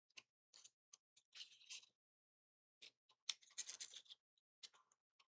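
Faint scattered clicks and light scratching of small model-kit pieces being handled and fitted together by hand, with a brief busier patch of scraping past the middle.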